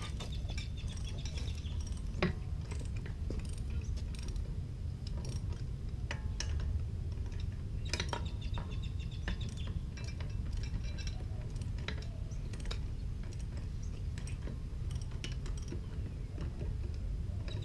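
Metal clicking and clinking as lug nuts are worked on a car's wheel hub by hand and with a wrench, with runs of ratchet-like clicking near the start and again about eight seconds in, over a steady low rumble.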